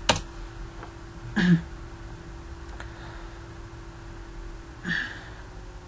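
A few quick computer-keyboard key clicks at the start, then two short wordless murmurs from the narrator's voice, pitch falling, about 1.5 s and 5 s in, over a steady faint electrical hum.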